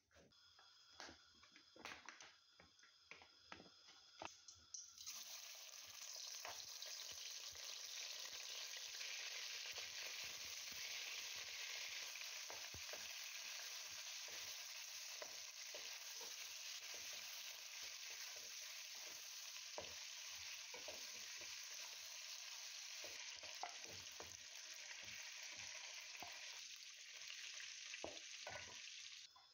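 A few seconds of wooden spoon clicks and knocks in a pot of boiled chickpeas, then hot oil sizzling steadily as chicken pieces fry in an aluminium karahi, with occasional knocks of the wooden spoon stirring.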